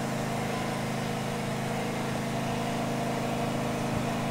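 Portable engine generator running steadily, a constant, rather loud engine hum.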